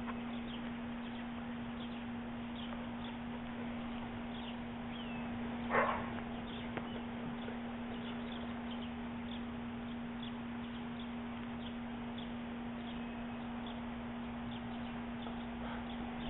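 A dog gives one short bark about six seconds in, over faint bird chirps and a steady low hum.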